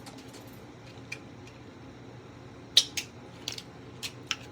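About six short, sharp clicks and smacks over faint room noise as flip-phone candy lollipops are handled and tasted.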